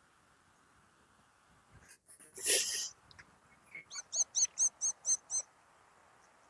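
A bird calls a quick run of about seven high, thin chirps, roughly four a second, starting about four seconds in. Just before them there is a single short, rough burst of noise.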